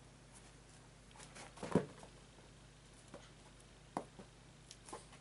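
A kitten pouncing and playing on a carpeted floor with a feather wand toy: a soft thump a little under two seconds in, with light taps and rustles before and after it.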